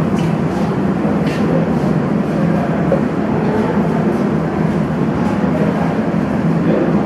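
Steady low rumbling background noise, with a few faint clicks about a second apart early on and again around five seconds in.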